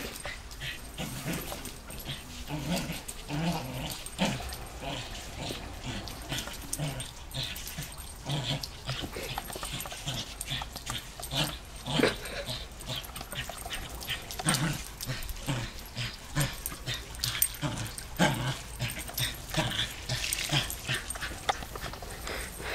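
A dog making short, irregular vocal sounds with sharp clicks between them as it goes after the spray from a garden hose.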